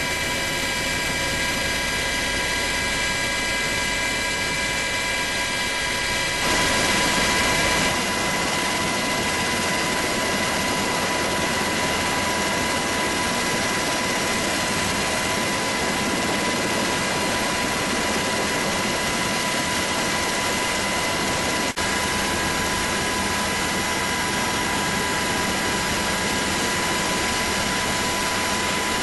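Helicopter running, heard from inside the cabin: dense rotor and engine noise with a steady high turbine whine over it. The sound shifts about seven seconds in and dips for an instant about 22 seconds in.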